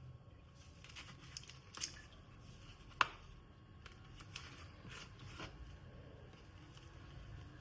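Scattered light clicks and taps of objects being handled, about half a dozen, the sharpest about three seconds in, over a low steady hum.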